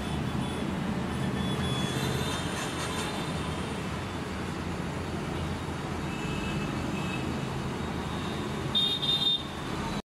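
Steady background road-traffic noise, with a brief louder high-pitched sound near the end.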